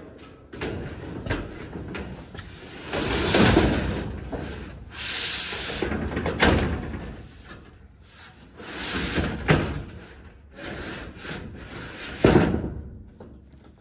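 A long ribbed metal roof panel being pushed and slid up over wooden roof purlins, with several long scraping rumbles and a sharp bang near the end.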